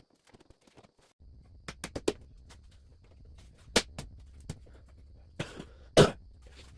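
A series of sharp knocks and clicks at irregular times, the loudest about six seconds in, over a low steady hum that starts about a second in.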